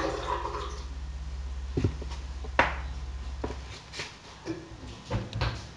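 Clicks and knocks from a plastic blender jar and its lid being handled, with the lid fitted back onto the jar near the end, over a low steady hum that stops about two-thirds of the way through.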